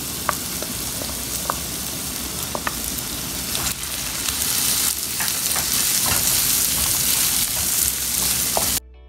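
Diced red onions sizzling in hot oil in a nonstick frying pan, stirred with a wooden spoon that taps and scrapes the pan now and then. The sizzle grows louder about four seconds in, then cuts off suddenly just before the end, giving way to soft music.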